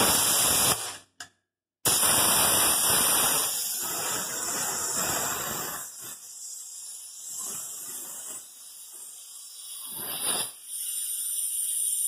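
Compressed air hissing from a shop air hose into a tyre through its valve stem, in spurts as the chuck is held on and let off, while the tyre's second bead is not yet seated.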